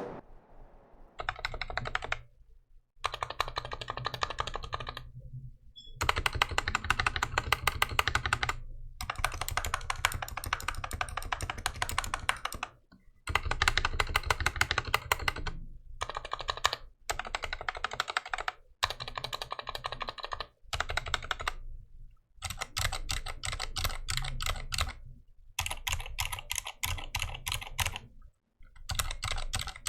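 Fast typing on a stock 60% mechanical keyboard with Silent Red switches, a dense run of soft key clicks and bottom-outs. It comes in stretches of a few seconds broken by short silent gaps.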